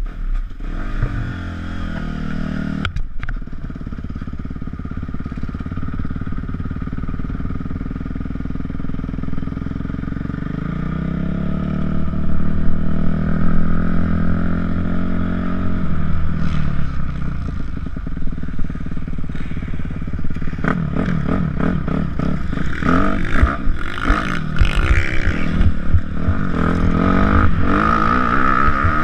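Motocross dirt bike engine running: first a steady idle, then revs climbing as the bike pulls away, and from about two-thirds of the way in the engine revving up and down hard with gear changes and wind noise as it is ridden fast over the dirt track.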